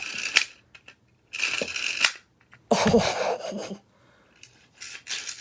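Toy packaging being cut and pulled open in four short rustling, scraping bursts with brief pauses between them.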